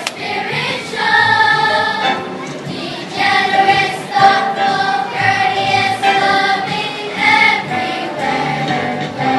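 Children's choir singing a Christmas song, holding long notes, with ukuleles played along.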